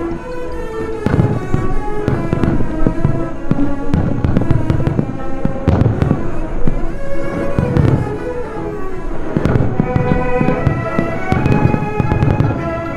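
Fireworks shells bursting in rapid, irregular succession, loud bangs and crackles many times a second. Orchestral music from the live broadcast plays steadily underneath.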